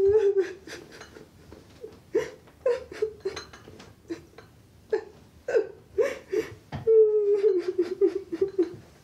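A person's high-pitched wordless voice in many short bursts, ending in a longer wavering sound about seven seconds in.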